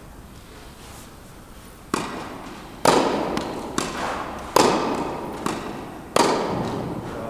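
Tennis ball struck back and forth by rackets in a fast volley exchange: six sharp pops about a second apart, every other one louder, each ringing on in the echo of a large indoor hall.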